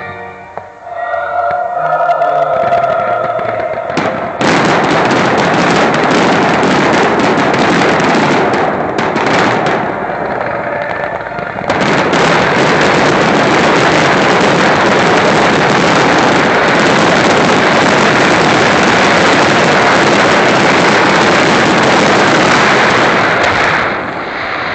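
A rapid, continuous fireworks barrage: overlapping bangs and crackling merge into one dense, loud wall of sound from about four seconds in, easing briefly around ten seconds, then running on until it drops away near the end. Before it starts, show music with held tones is heard.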